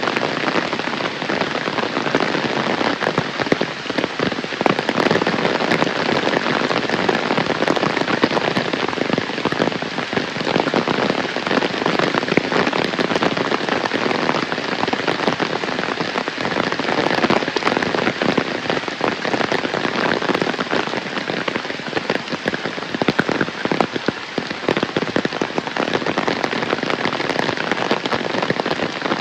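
Heavy rain falling steadily: a dense, even wash of drops with many small sharp taps as they strike surfaces.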